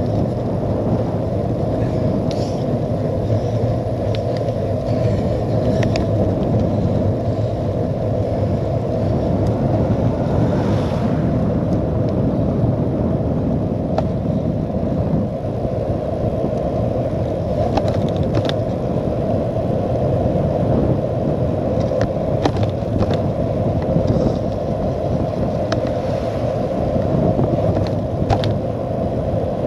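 Steady, dull rush of wind and tyre noise from a cyclocross bike rolling on tarmac at around 20 mph, picked up by a handlebar-mounted camera. Scattered small clicks and ticks come through on top.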